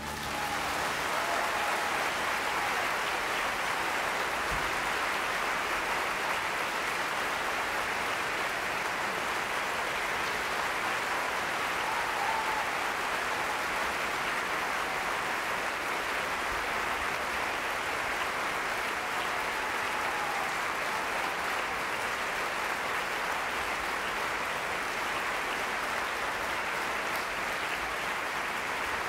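Opera-house audience applauding steadily, the clapping breaking out just as the piano music ends.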